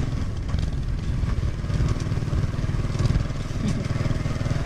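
Honda Wave S100 motorbike's small single-cylinder four-stroke engine running steadily while riding.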